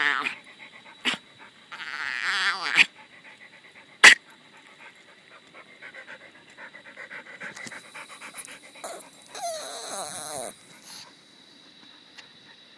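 A dog's funny vocal noise: bursts of rapid, warbling 'ah-ah-ah' whining, one about two seconds in and one near the end that falls in pitch, with a sharp click about four seconds in.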